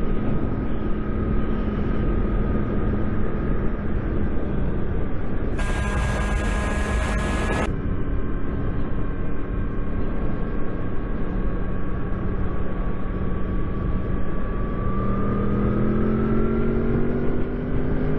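Sport motorcycle engine running steadily at road speed, with wind rushing over the microphone. A brief burst of hiss comes about six seconds in, and near the end the engine note rises as the bike accelerates.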